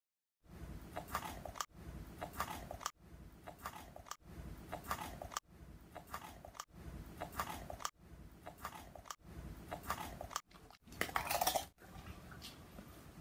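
A dog crunching and chewing a dry cracker, with crisp cracking bites and wet mouth sounds. The crunching is broken by brief silent gaps about every second or so.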